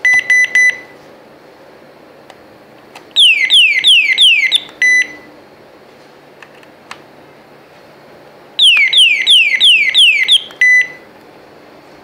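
Laptop anti-theft cable-lock alarm controller sounding: three quick high beeps, then a siren of fast, repeating falling sweeps for about a second and a half, closed by a single beep. About four seconds later the siren sounds again for nearly two seconds and ends with another beep. The siren is the alarm set off by a security cable being pulled from the unit.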